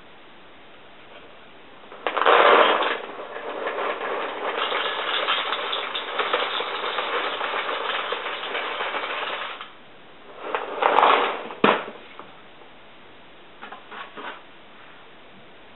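Honey Nut Cheerios poured from the box into a ceramic bowl: a dry rattling pour lasting about eight seconds, loudest as the first pieces hit the bowl. A second, shorter pour follows, then a sharp knock.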